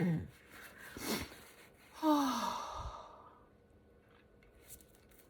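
A person's voiced sigh about two seconds in, falling in pitch and trailing off into breath, after a couple of shorter breathy sounds.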